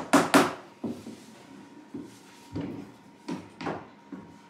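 Hammer knocking on an old panelled wooden door, about seven blows: two quick loud ones at the start, then single, lighter knocks spaced through the rest.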